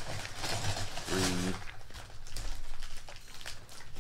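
Lego Technic plastic pieces clicking and clattering as they are handled and sorted, with a short hummed voice sound about a second in.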